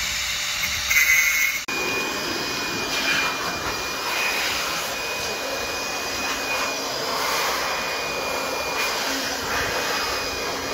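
An angle grinder cutting a steel rebar stub off flush with a concrete wall, loud and brief. It stops abruptly about 1.7 seconds in and gives way to a steady mechanical whine with hiss from machinery.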